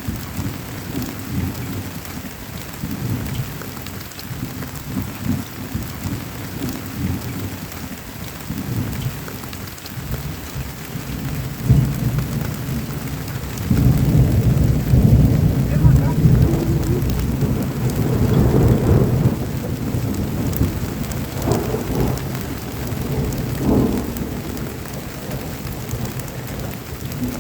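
Heavy rain drumming on a black nomad tent, heard from inside, with a deep low rumble that grows louder about halfway through.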